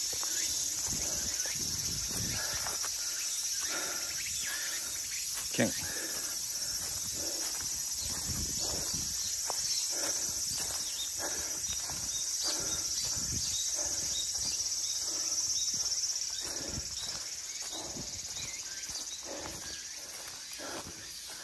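Footsteps of a hiker climbing a forest trail, against a steady high-pitched chorus of insects that weakens about sixteen seconds in. One sharper knock stands out about five and a half seconds in.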